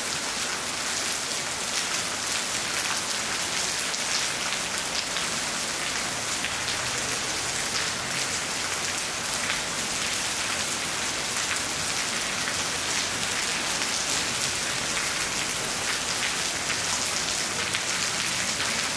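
Steady rain falling, a continuous hiss of many small drops ticking on surfaces.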